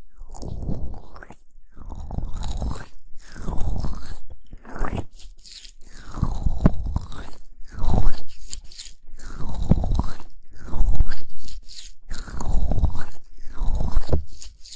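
Hands rubbing and massaging over a close microphone in slow, repeated strokes, about one every second and a half, each a loud crunchy rustle right on the mic.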